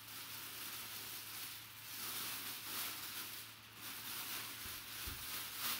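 Thin clear plastic bag rustling and crinkling as hands work it off a full-size football helmet, in uneven swells.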